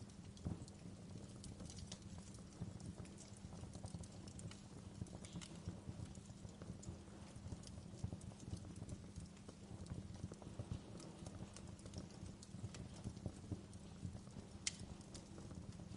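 Wood fire crackling in a fireplace: a steady low rumble of burning with frequent small irregular pops and snaps, and one sharper pop near the end.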